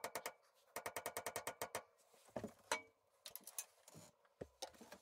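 A ratchet wrench clicking quickly, about ten clicks a second, in two short runs as a fastener on the Yanmar 186D tractor is turned during strainer removal. After that come scattered metallic knocks and clanks of tools and parts.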